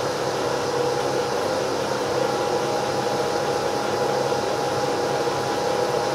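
Friction test rig with a piston-ring friction pair running dry, its oil supply cut off: a steady mechanical whine over a noisy hum. About two seconds in, a higher steady tone joins it, the sound of the dry friction pair beginning to tear (scuff).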